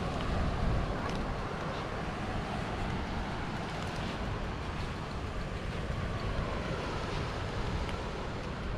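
Wind buffeting the microphone in a steady low rumble, with the even wash of surf behind it.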